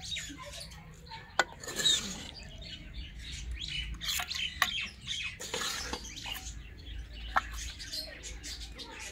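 Birds chirping throughout, with a few sharp clinks of a steel ladle against steel bowls as curry is served.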